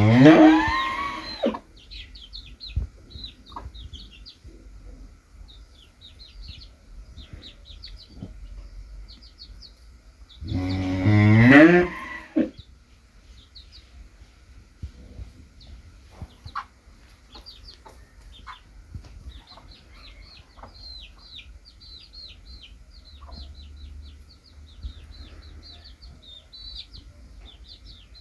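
A cow moos twice, two long calls about ten seconds apart, with chicks peeping in short, high chirps throughout.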